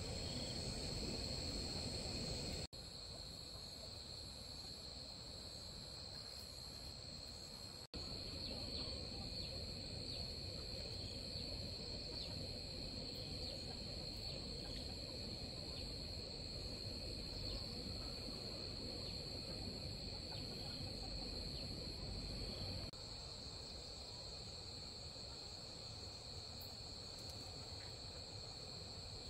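Steady high-pitched insect chorus of the kind crickets make, running without pause over a low background hiss; its loudness shifts abruptly a few times.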